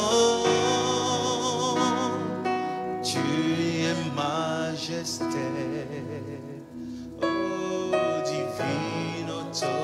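Slow French gospel worship song: voices singing long held notes with vibrato over instrumental backing.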